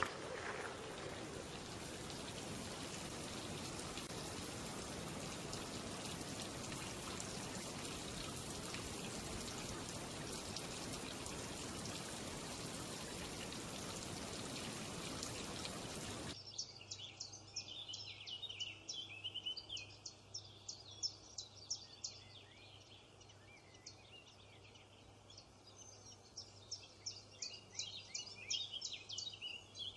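A steady, even rushing hiss runs for about the first half, then cuts off suddenly. After that come small birds chirping in quick, high-pitched notes, in two busy spells with a lull between.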